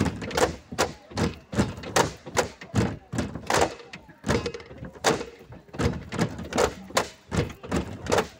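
Bamboo poles of the Mizo Cheraw dance knocked against the floor beams and clapped together in a steady repeating rhythm: sharp wooden knocks, about two to three a second.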